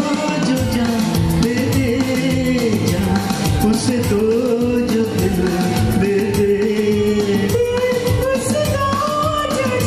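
A man and a woman singing a Hindi film duet in turn into microphones over a recorded karaoke backing track with a steady beat.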